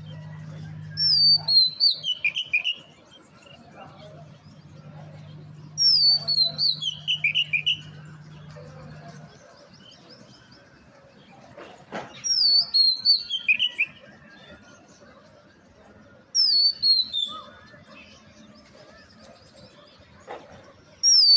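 A songbird singing the same short phrase over and over, a quick run of notes falling in pitch, five times about every four to five seconds.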